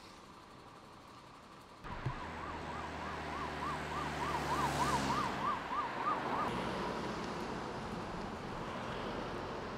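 Emergency vehicle driving past with its siren on, a fast rising-and-falling wail about three times a second over the engine and tyre noise. It starts suddenly about two seconds in, is loudest as the vehicle passes, and the siren stops after about six seconds, leaving a steady hiss.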